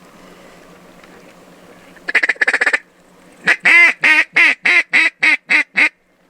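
Mallard duck call blown up close: a quick chattering run of short notes about two seconds in, then a string of about nine loud, drawn-out quacks that come slightly faster toward the end, calling passing mallards in to the decoys.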